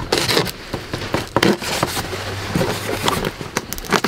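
Packing tape on a cardboard box being slit with a knife and peeled back: irregular crackling, scraping and ripping.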